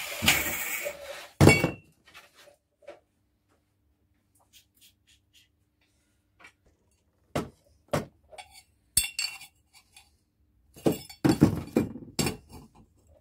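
An angle grinder's cut stops about a second in. Then cut stainless steel exhaust tube bends are set down and handled on a workbench: one loud ringing clank, scattered metallic clinks, and a busier run of clinks and knocks near the end.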